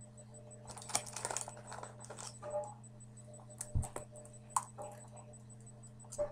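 Light clicking and tapping on a laptop, in a few quick clusters of short clicks, over a steady low electrical hum.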